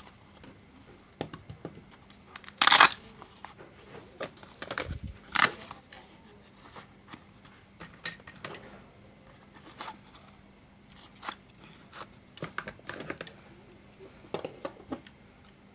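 A nylon fabric toy pouch being opened and handled, with two short, loud ripping noises about 3 and 5.5 seconds in, and scattered light clicks and rustles of small plastic toy pieces being picked up and set down.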